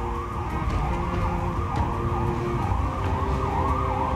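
Siren sound effect wailing up and down in quick regular sweeps, about twice a second, over a steady low backing of a music track.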